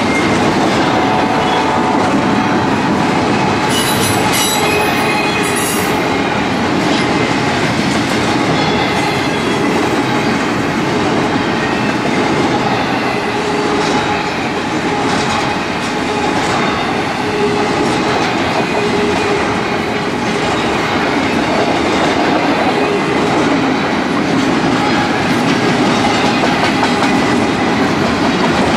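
Freight train cars rolling past close by: a steady loud rumble of steel wheels on rail, with clicks over rail joints and a faint thin wheel squeal now and then.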